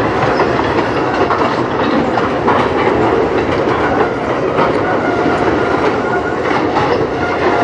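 Tank cars of a freight train rolling past, their steel wheels clacking over the rail joints over a steady rumble, with a faint squeal here and there.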